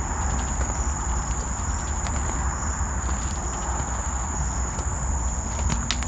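A steady, dense crackling and buzzing chorus with a constant high-pitched whine over it and a low rumble underneath, the unexplained noise heard from all directions in the mangroves.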